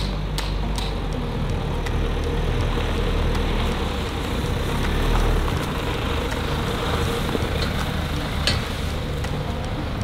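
Mazda CX-8 driving, heard as a steady low engine and road rumble with a few sharp clicks, loudest about 8.5 seconds in.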